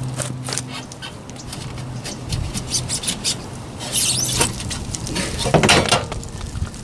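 Clicking, scraping and rasping of metal parts and hand tools being worked during a rear coil-spring swap, with a low steady hum under the first two seconds.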